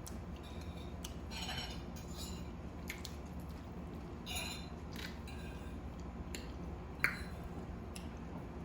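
Scattered light clicks and short scrapes of utensils and dishes during a seafood meal at the table, over a low steady hum.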